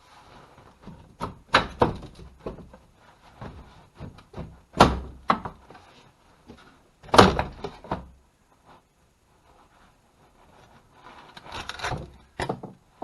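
A series of irregular knocks and thuds, the two heaviest about five and seven seconds in, with a quicker cluster of clattering hits near the end.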